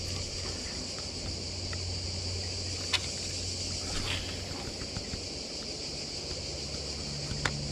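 Steady high-pitched buzzing of cicadas in summer heat, with two sharp clicks, about three seconds in and near the end, from handling the spinning rod and reel.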